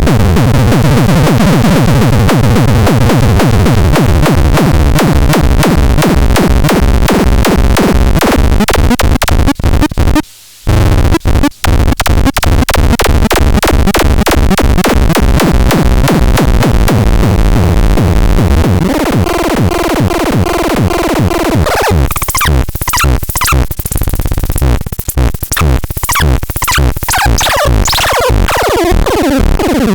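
Harsh, loud electronic noise from the 'Dead Kitten' noise instrument, pulsing rapidly, with two short drop-outs about ten seconds in. The texture changes about two-thirds of the way through, turning thinner and more stuttering.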